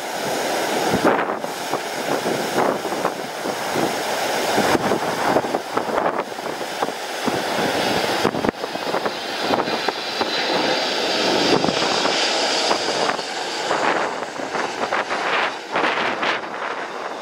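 Jet airliner on landing approach, its engines running with a steady whine and a high hiss that swells and fades. Strong gusty wind buffets the microphone throughout.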